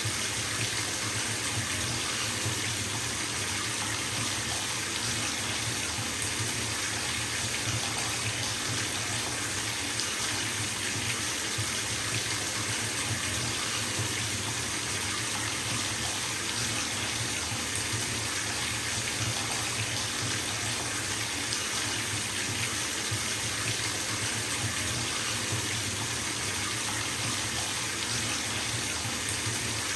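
Water running steadily from a bathtub tap into the tub as it fills: an even, unbroken rush of splashing water.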